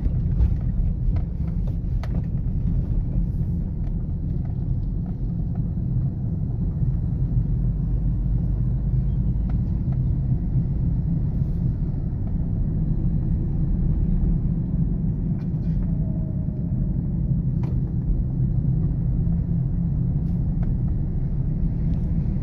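Steady low rumble of a Toyota Corolla XLi running on LPG, heard from inside the cabin: the engine turns at low revs in fifth gear at about 40 km/h with the air conditioner on, together with road noise.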